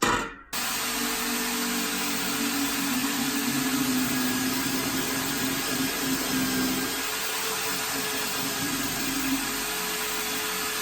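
An electric power tool running steadily: a constant motor hum under an even hiss, starting after a brief gap of about half a second.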